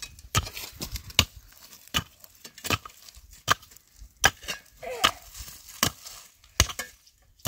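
Steady chopping: a blade striking wood in an even rhythm, about one sharp blow every three-quarters of a second, some ten strikes in all.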